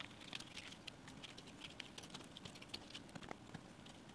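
Faint, irregular clicks and taps of cut stained-glass pieces knocking against each other as they are shifted by hand over paper.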